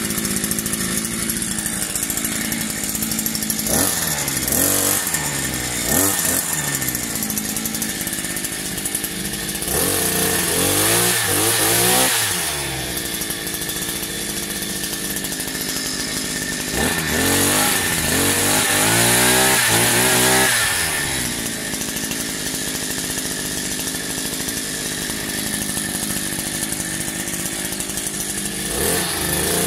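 Small two-stroke engine of an engine-powered multi-tool garden machine running steadily. It is revved up and down several times, with two longer revs of a few seconds each in the middle and another near the end.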